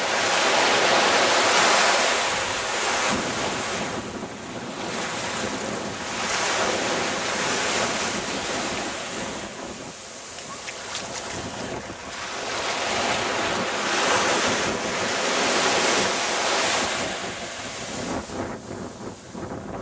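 Wind and small waves washing onto a sandy beach: a rushing noise that swells and fades every few seconds.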